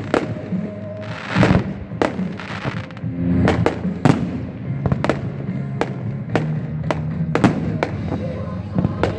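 Aerial fireworks going off in a rapid, irregular string of sharp bangs, about two a second, with one bigger rushing burst about a second and a half in. The show's music plays steadily underneath.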